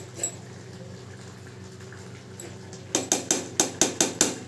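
Pot of thick khichdi cooking on the stove, over a low steady hum. About three seconds in comes a quick run of about eight sharp clicks or pops within a second.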